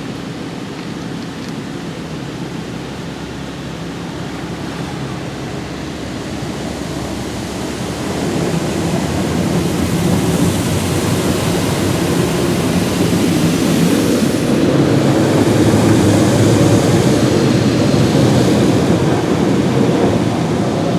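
High-pressure water jets of a Belanger Kondor automatic car wash spraying against a car's body, with a steady machine hum underneath. The spray gets clearly louder about eight seconds in.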